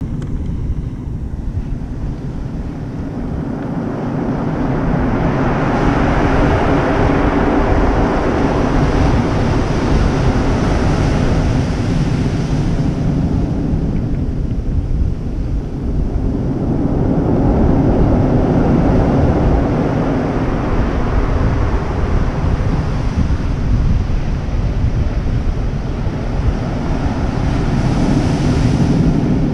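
Rough surf breaking on a stony shore, swelling and easing in three long surges, with wind buffeting the microphone.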